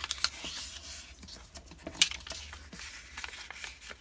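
A strip of copy paper being folded in half and creased by hand, with rustling and rubbing as it is pressed flat and one sharp click about two seconds in.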